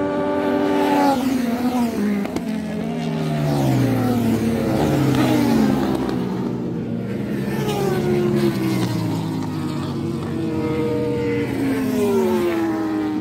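Racing motorcycles passing one after another at speed, each engine's pitch falling as it goes by, with several engines overlapping.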